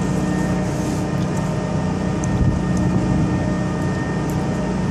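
A ship's engine running steadily: a constant drone with a steady hum.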